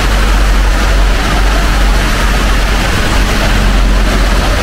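Steady, loud city street noise: traffic on wet roads with the hiss of rain, over a heavy low rumble.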